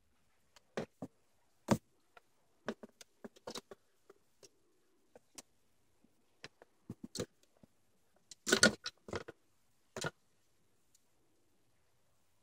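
Scattered, irregular clicks and scuffs from a ferret being played with by hand on carpet, with a louder cluster of several about two-thirds of the way through.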